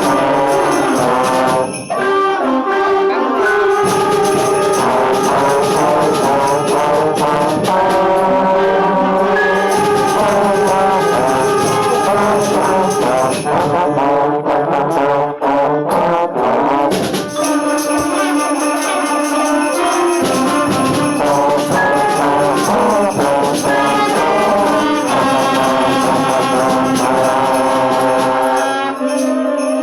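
Trombone playing a lively melody over a backing track of orchestra with tambourine and sleigh bells.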